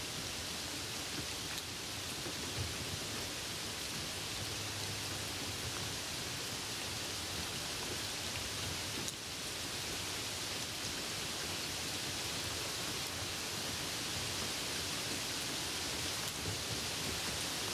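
Steady rain on a moving car, heard as an even hiss with a few faint taps.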